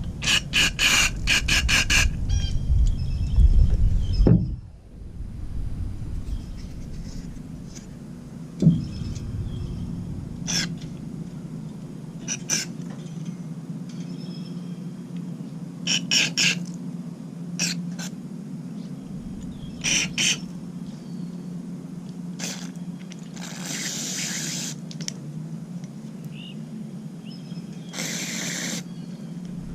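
Small lawnmower carburetor parts being handled and worked on: scattered sharp metallic clicks and scrapes over a steady low hum, with a quick run of clicks and a low rumble in the first few seconds and two short hissing bursts near the end.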